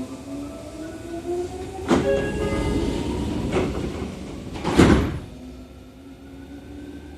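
Seibu 30000 series electric train running under power, its inverter and motor whine made of several tones climbing slowly in pitch as it gathers speed. Three loud clunks from the running gear come about two, three and a half and five seconds in, the last the loudest.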